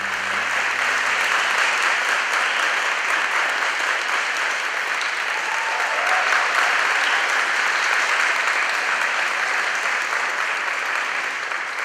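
Audience applause, rising over about the first second and then holding steady.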